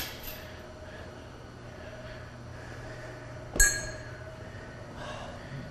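A single sharp metallic clink with a short ring about three and a half seconds in, metal striking metal, over a low steady hum.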